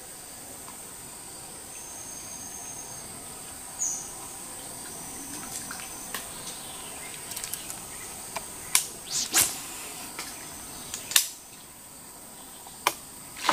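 Steady high-pitched drone of insects in a forest swamp, with a few sharp clicks and knocks in the second half, the loudest about nine and eleven seconds in.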